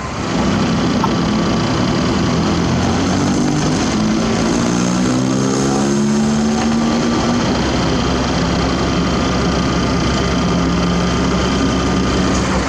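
Heavy diesel engine on construction equipment revving up, its pitch rising over a few seconds, then running steadily at the higher speed.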